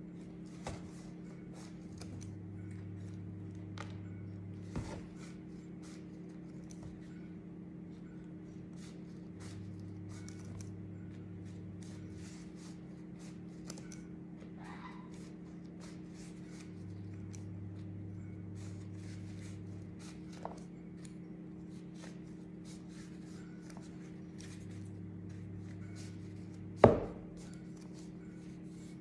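Large kitchen scissors snipping through dry Arabic flatbread (khubz), a long run of small crisp cuts and blade clicks, over a steady low hum. One sharp knock near the end.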